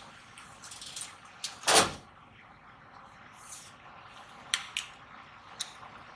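Handling noises at a stainless-steel lab work surface as gloved hands work a pipette and a culture pad: one solid thump about two seconds in, the loudest sound, and a few short sharp clicks scattered before it and near the end, over a faint steady hiss.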